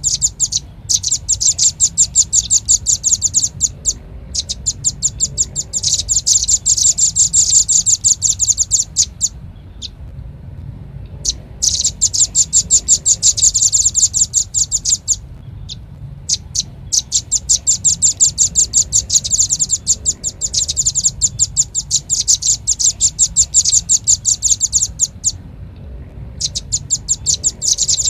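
Velvet-fronted nuthatch (red-billed rambatan) calling in rapid, high, chattering trills of sharp notes, about ten a second, in runs of one to three seconds with short pauses between, played as a bird-lure recording.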